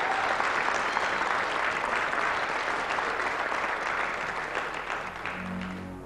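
Studio audience applauding, a dense patter of clapping that dies away near the end as low, steady keyboard notes come in, the start of the song's intro.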